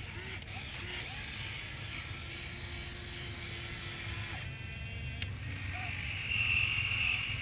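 Radio-controlled hydraulic excavator running: small electric motor and pump whining steadily over a low hum, the whine growing louder about six seconds in.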